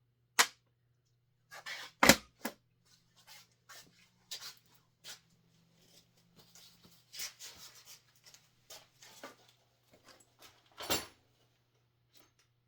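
Metal tools and hardware clattering and knocking as someone rummages through them: a sharp knock near the start, heavier clunks about two seconds in and again near the end, with light clinks and rattles in between.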